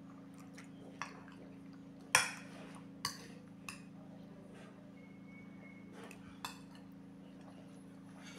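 Metal fork clinking against a ceramic bowl while eating: a handful of light, scattered clinks, the loudest about two seconds in.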